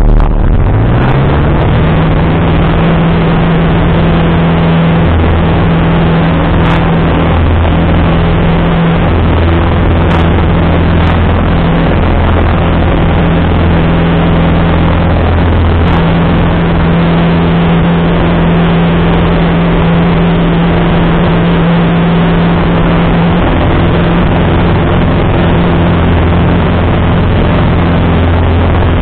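Single-engine light aircraft's engine and propeller droning steadily, heard inside the cockpit over airflow noise; the pitch rises over the first couple of seconds, then holds.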